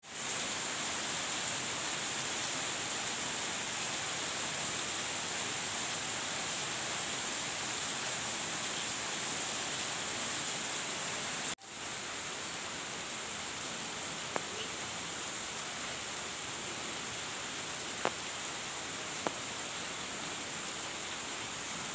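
Steady heavy rain falling on coconut palm fronds, an even hiss. About halfway through it drops out for an instant at a cut and comes back a little quieter, with a few sharp clicks in the second half.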